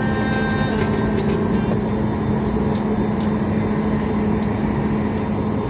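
Cabin noise inside a Boeing 737 MAX slowing after landing: a steady rumble with a constant low hum.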